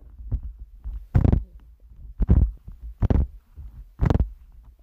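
Slime being squeezed and kneaded by hand close to the microphone: four short wet squishes about a second apart, over a low rumble.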